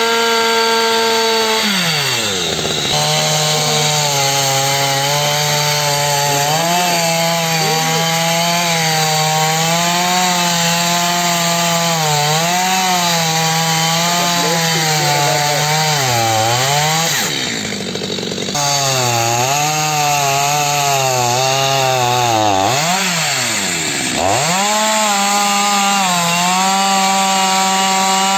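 STIHL petrol chainsaw cutting into a tree trunk. It runs at high revs, drops in pitch as the chain bites about two seconds in, and labours under load through the cut. It eases off twice before climbing back up in speed near the end.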